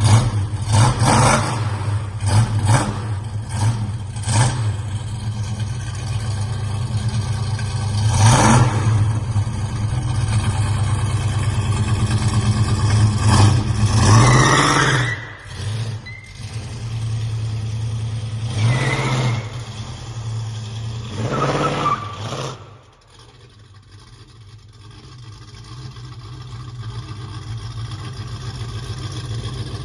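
A 1968 Chevrolet Chevelle SS's big-block V8 running, with the throttle blipped again and again in quick, sharp revs, then a few longer revs. About three-quarters through the sound drops away suddenly and then slowly grows louder again.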